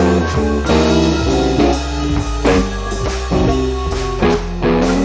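Background music: a guitar tune over drums, with a steady beat.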